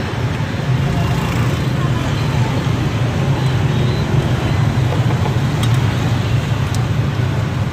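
Steady rumble of street traffic, with the sizzle of battered durian rolls deep-frying in a wok of hot oil.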